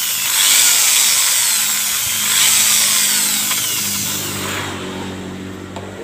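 Electric hand drill running, boring a pilot hole through a thin bamboo strip of a cage frame so that the strip can be nailed without splitting. The drilling noise dies away about four to five seconds in.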